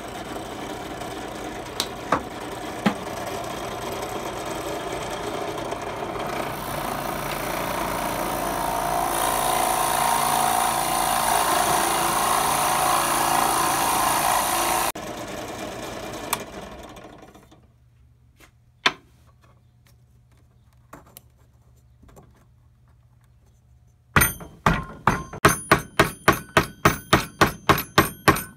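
Drill press running and boring into a pine block, the cutting noise growing louder until the machine is switched off about halfway through and winds down. After a few faint clicks, a metal hammer strikes fast, about four blows a second, tapping a bearing into the drilled hole.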